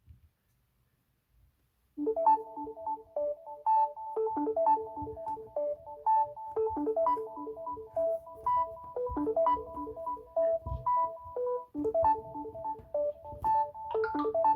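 Samsung Galaxy S10 ringtone playing: a repeating melody of short keyboard-like notes that starts about two seconds in, after near silence.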